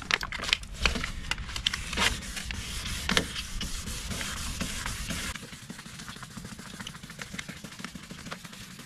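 Plastic headlight lens of a Hyundai i10 being hand-sanded with 2000-grit sandpaper under firm pressure: a rubbing hiss with scattered sharp clicks and knocks, growing quieter about five seconds in.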